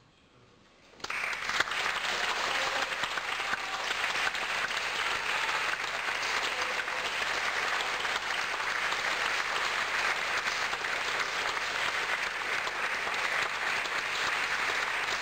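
Near quiet for about a second, then audience applause starts and continues steadily.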